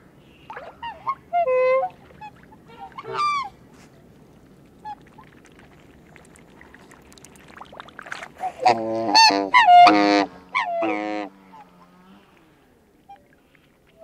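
Two black swans calling at close range, mixing high, bugling calls with deep honks. A few short calls come in the first few seconds, then a loud run of calls about nine to eleven seconds in, ending on one long, low, steady note.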